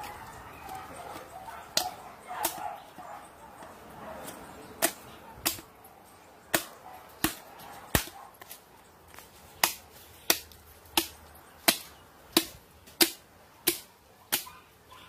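A machete chopping into a hanging hog carcass: two blows, then a steady run of sharp chops about one and a half a second, a dozen or more in all.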